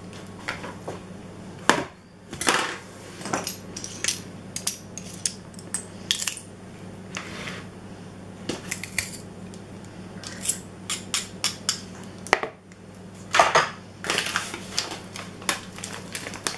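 Hand-held metal garlic press crushing a garlic clove: irregular clicks, crunches and metal scrapes, with sharper knocks about two seconds in and again around thirteen to fourteen seconds.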